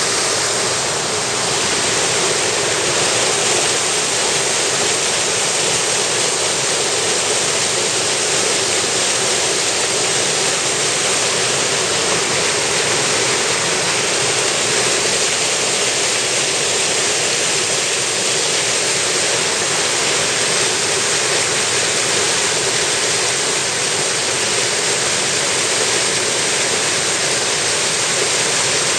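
Mountain headwater stream rushing down a small cascade over bedrock: a steady, loud rush of water.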